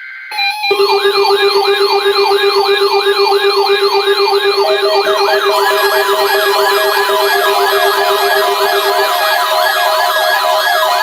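Loud electronic siren-style alert tone: a fast, repeating rising whoop, about three a second, over a steady low tone. A second overlapping whoop pattern and more steady tones join about four to five seconds in.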